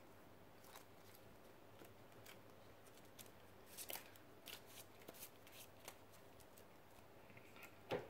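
Faint clicks and taps of trading cards being handled and laid on a wooden table, mostly about four to six seconds in, with one sharper tap at the end.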